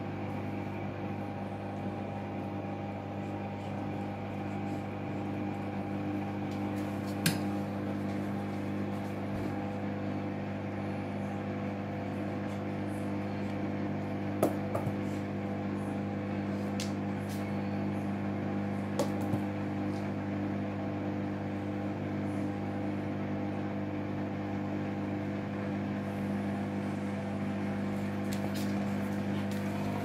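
A Hoover front-loading washing machine running with the drum turning through a suds lock, when the machine holds back because of excess suds. It gives a steady motor hum, with a few sharp clicks spread through it, the loudest about seven and fourteen seconds in.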